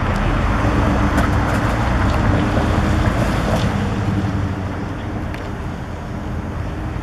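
A motor vehicle running, a steady low engine hum and rumble that swells over the first few seconds and eases off toward the end.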